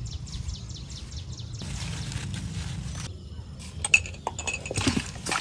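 Faint bird chirps outdoors, then, from about four seconds in, sharp clinks and knocks of raw pork intestines being handled with salt in an aluminium bowl.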